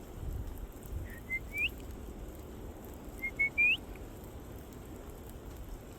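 Two short whistled phrases, about two seconds apart. Each is a couple of brief steady notes that end in a quick rising upsweep.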